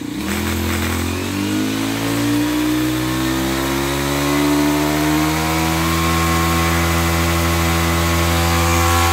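Makita 427 four-stroke 27cc brush cutter engine revving up over the first few seconds, then holding a steady high speed with its blade spinning freely. It is still short of full throttle.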